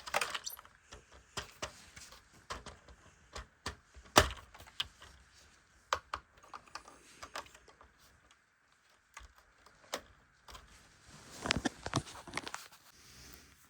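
Plastic LEGO bricks clicking and rattling as they are handled and pressed together: scattered sharp clicks, with a quicker flurry of clicks near the end.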